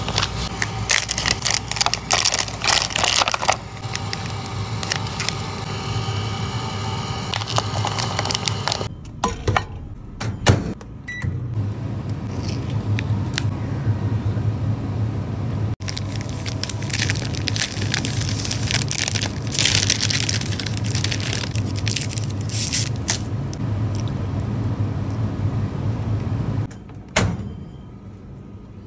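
Plastic and paper food packaging crinkling and rustling as an instant tteokbokki cup is unwrapped and its lid and sauce packet are handled, in two stretches, over a steady low hum.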